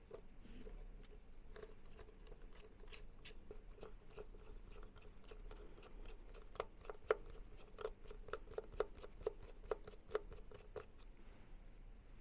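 Faint, irregular small clicks and ticks from a precision screwdriver working tiny screws out of a Nokia G22's motherboard cover. The clicks come thicker and louder from about halfway through.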